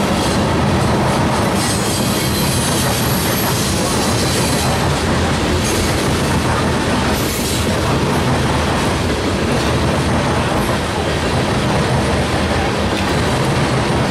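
Freight train's tank cars and covered hoppers rolling past: a steady, loud din of steel wheels on rail, with a higher-pitched squeal showing briefly about two seconds in and again around seven seconds in.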